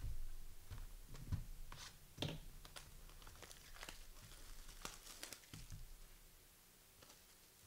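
Faint crinkling and tearing of trading-card pack wrappers, with irregular crackles and a few soft knocks as packs are opened and the cards handled.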